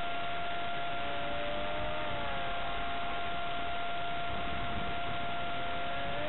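Electric ducted-fan motor of an RC Stryker flying wing whining in flight, its pitch drifting up and down as the plane passes overhead, over a steady high hum and a wash of noise.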